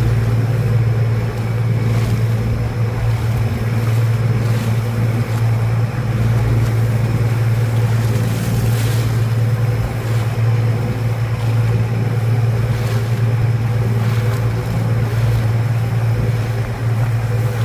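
Boat engine running steadily with a constant low drone, under a wash of wind and water noise.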